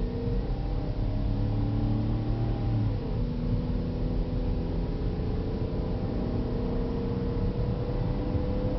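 Chevy Equinox 3.0-litre V6 running under way, with low road rumble, heard from inside the cabin. The engine note dips about three seconds in, then rises slowly.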